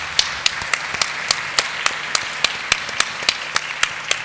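Audience applauding, with one person's claps close to the microphone standing out as sharp, evenly paced claps about four a second over the general applause.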